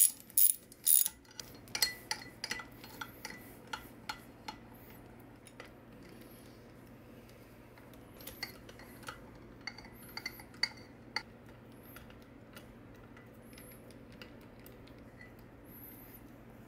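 Socket ratchet clicking as cylinder head bolts are run down hand-tight. There are loud clicks at the start, then a quick series of about three clicks a second for a few seconds, and a few scattered clicks around the middle.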